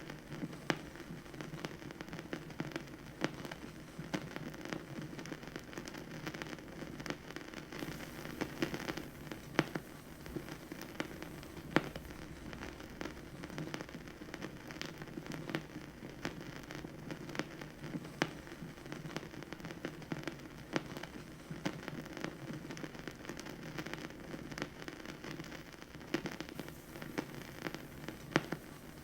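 Vinyl record surface noise: a steady crackle of many small clicks and pops over a soft continuous noise, with a few sharper pops standing out.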